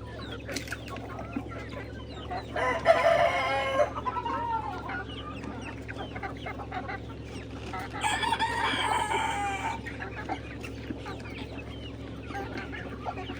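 Chickens clucking, and a rooster crowing twice: once about two and a half seconds in, and again about eight seconds in.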